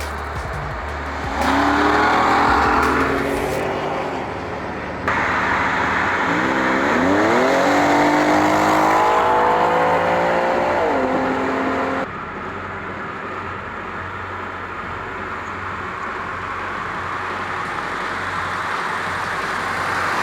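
Car engines revving and accelerating, the engine pitch climbing twice as a car pulls away; the sound changes abruptly a couple of times.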